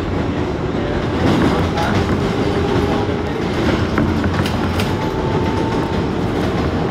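New York City Subway 7 express train heard from inside the car while it runs at speed: a steady rumble of wheels on rails, with scattered clicks of the wheels passing over rail joints.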